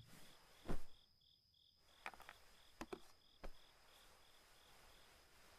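Crickets chirping in a quick, even pulsing rhythm, with a soft thump about a second in and a few light clicks after it.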